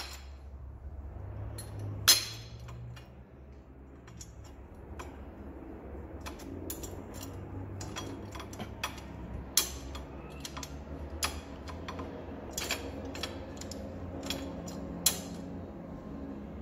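Steel tow bar on a homemade electric aircraft tug being handled and retracted, giving scattered light metallic clicks and clinks, with a sharper knock about two seconds in, over a steady low hum.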